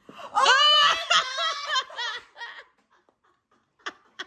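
A woman bursting into loud, high-pitched laughter for about two seconds, then dying away.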